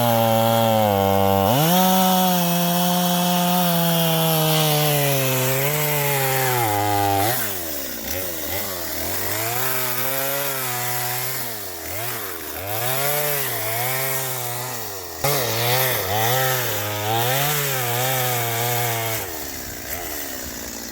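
Stihl two-stroke chainsaw held at full throttle, cutting wood, for about seven seconds. It then drops toward idle and revs back up again and again before falling away near the end.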